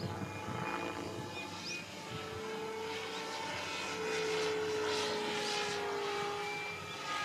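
Radio-controlled model helicopter flying overhead, its motor and rotor making a steady whine. The whine grows stronger about two seconds in and shifts slightly in pitch as it manoeuvres.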